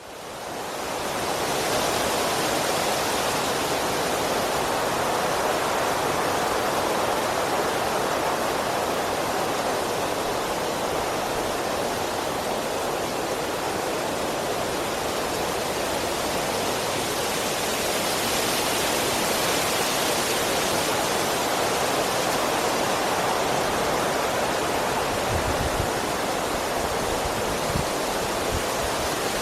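Strong wind blowing through trees: a steady rush of leaves and branches that fades in over the first second or two, then swells and eases a little. A few brief low rumbles come near the end.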